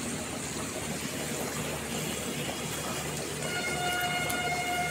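Puris frying in hot oil in a kadhai: a steady sizzle. About three and a half seconds in, a steady pitched tone joins it and holds.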